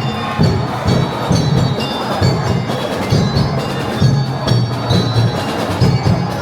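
Festive parade music with chiming bell-like tones over a steady drum beat.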